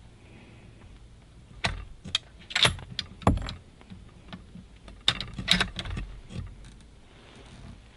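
Two bursts of sharp metallic clicks and knocks, the first about two to three and a half seconds in and the second around five to six seconds in: handling noise from a scope-mounted rifle.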